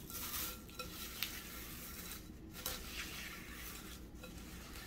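Spatula stirring crunchy fried chow mein noodles into melted almond bark in a glass bowl: a soft, continuous rustling and scraping with a few light clicks.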